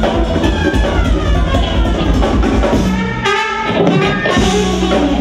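Live jazz-funk band playing with drum kit, electric bass, electric guitar and keyboards. About three seconds in the bass and drums drop out for a brief break, then the full band comes back in.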